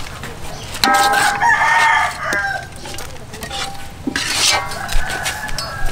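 A rooster crowing once, a call of about a second and a half starting about a second in.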